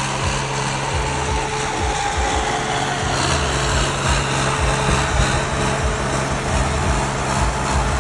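Swaraj 855 FE tractor's turbocharged three-cylinder diesel engine running steadily at road speed, over a steady hiss of wind and road noise.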